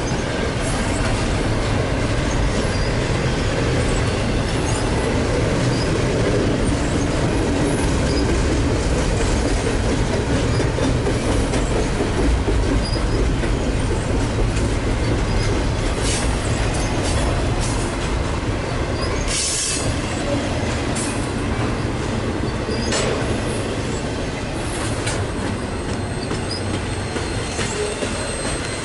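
Double-stack intermodal freight cars rolling past: a steady rumble and clatter of steel wheels on the rails, with a few brief high-pitched wheel squeals. The sound eases off slightly near the end as the tail of the train goes by.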